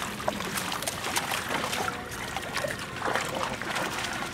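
Water sloshing and splashing irregularly as a seine net full of small fish is hauled through shallow water, the fish thrashing at the surface in the net.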